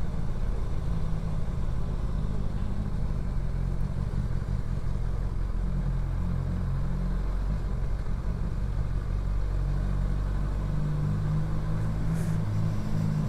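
Motorcycle engine running steadily at low road speed, heard from the rider's own bike, with small shifts in pitch as the throttle changes.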